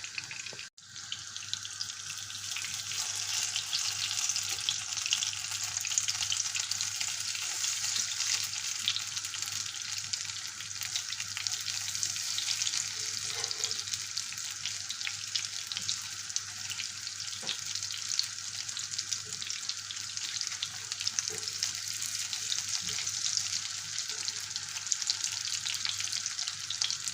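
Carrot fritters coated in semolina sizzling steadily in hot oil in a frying pan, with a constant hiss and many small crackles.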